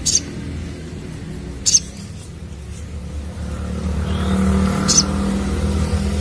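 Crimson sunbird (sogon) giving short, sharp, high chirps, three times, a second or more apart. A steady low engine-like hum underneath grows louder from about four seconds in.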